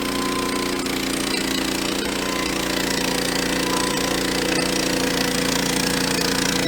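Portable bandsaw sawmill's gas engine running steadily, a little louder from about halfway through.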